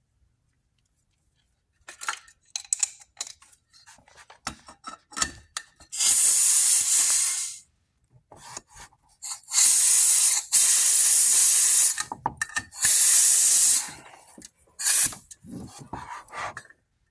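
Shop compressed air hissing in three bursts of about one to two and a half seconds each, with hard starts and stops, between clicks and rattles of metal tools and brass air fittings, while a leak-down tester is being connected to a cylinder.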